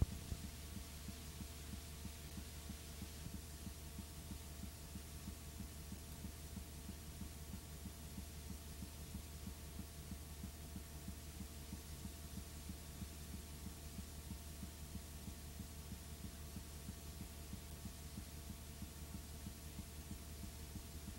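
Steady low electrical hum with faint hiss and a fast, faint throbbing underneath, with no programme sound: the blank tail of a videotape transfer.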